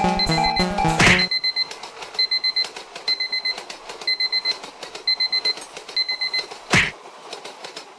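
Electronic alarm beeping in quick bursts of rapid pips, about one burst a second, after a whoosh cuts off the music about a second in. A second whoosh comes near the end.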